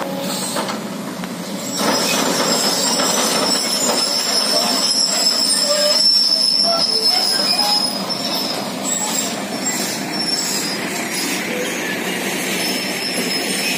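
Diesel engines of an excavator and tractors running at a rock-loading site. A steady high-pitched squeal rises over them about two seconds in and lasts about six seconds.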